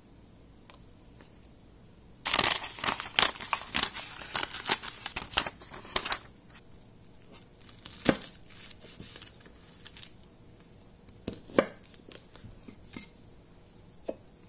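Paper being torn and crumpled: a dense run of crackling rips lasting about four seconds. Later, a few single knife strokes through spring onions, knocking on the cutting board.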